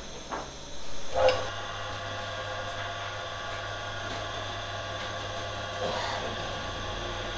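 A couple of knocks about a second in. Then a commercial dough mixer's electric motor runs steadily with a low hum and a whine as its hook kneads wet sangak dough in a steel bowl.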